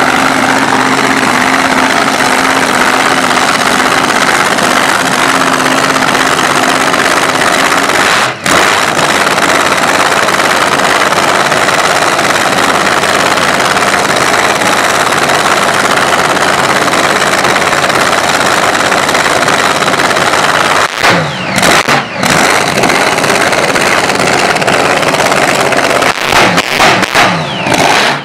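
Dragster engine running in a static demonstration, extremely loud, so loud it hurts the ears. The sound drops off briefly once about eight seconds in, then drops several times in the last seven seconds with the pitch sweeping back up each time, as the throttle is blipped.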